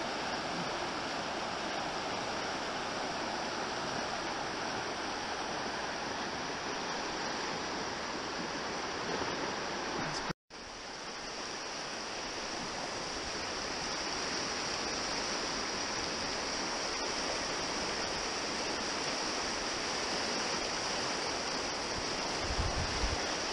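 Steady rush of a fast, high-running stream pouring through whitewater rapids. The sound cuts out for an instant about ten seconds in, then returns.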